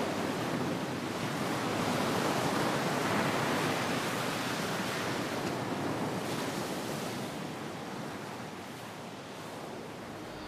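Sea surf and wind: a steady rushing noise of waves that slowly fades toward the end.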